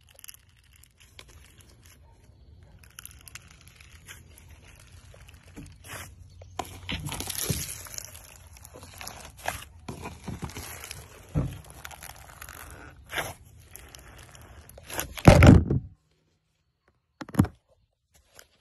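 White slime coated in rainbow sprinkles and small beads being squeezed, stretched and pulled apart by a gloved hand: crunching and crackling, growing louder to a loud stretch near the end, then stopping abruptly.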